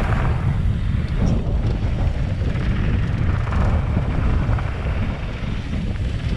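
Wind noise on a GoPro microphone over a steady low rumble, the sound of a downhill mountain bike rolling along a dirt trail.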